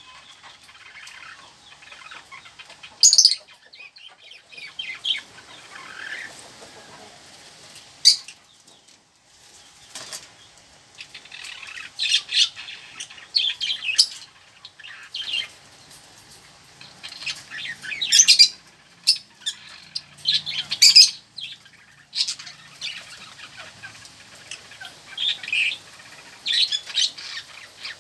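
Pet lovebirds and budgerigars chirping and squawking in many short, shrill calls, with brief gaps.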